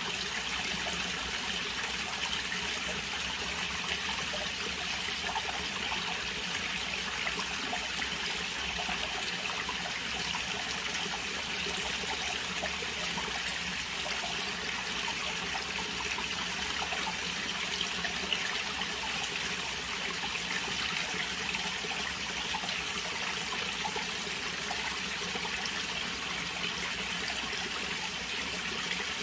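Pond water trickling and splashing in a steady, unbroken stream.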